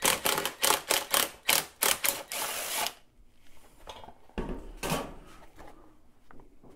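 Craftsman cordless screwdriver backing out a bolt from a Honda XR100R's plastic side panel: a quick run of rattling clicks ending in a short whir. Then the hard plastic panel knocks and rubs once as it is worked loose by hand, about halfway through.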